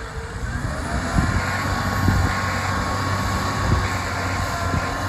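Tractor engine running steadily under load while ploughing, with a whine that dips and then rises in pitch about a second in, and a few dull knocks.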